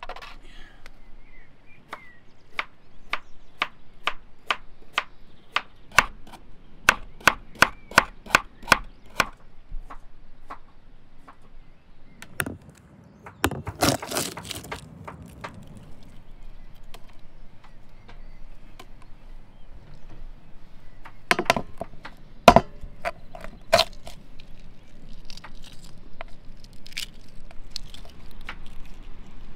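Boiled chicken eggs being cracked on a hard tray: a run of sharp taps, about three a second, then a crackling as an egg is rolled under the palm to crush its shell. A few more loud taps follow, and near the end the softer crackle of shell being peeled off.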